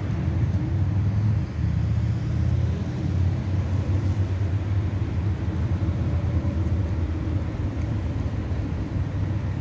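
Steady low engine rumble, easing off a little in the second half.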